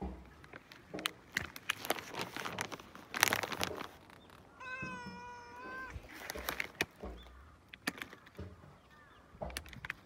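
Domestic tabby cat giving one long, steady meow about five seconds in. Before it comes a run of short noisy clicks and rustles, the loudest a little after three seconds.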